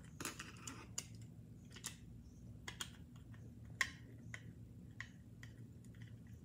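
Small screwdriver backing a screw out of a model car's plastic display base: faint, irregular light clicks and taps of metal tool on plastic, with one louder click a little before four seconds in, over a low steady hum.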